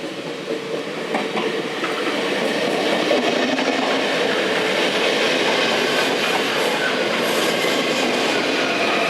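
VIRM double-deck electric train approaching and running past, growing steadily louder with rumbling wheel and rail noise and some clickety-clack over the rail joints.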